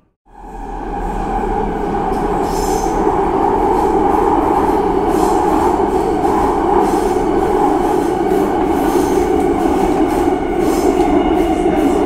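Subway train running through a tunnel, heard from inside the car: a steady, dense rumble with a droning tone running through it. It builds from silence over the first couple of seconds, then holds steady.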